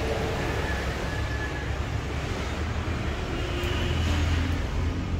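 A motor vehicle engine running nearby as a low, steady rumble that grows a little louder about three to four seconds in, over a background of street noise.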